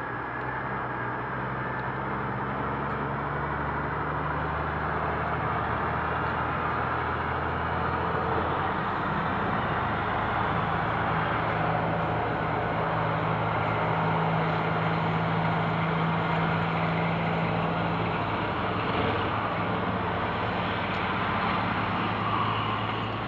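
An engine running steadily, like a motor vehicle, with a steady hiss of noise over it; its pitch shifts about eight to nine seconds in.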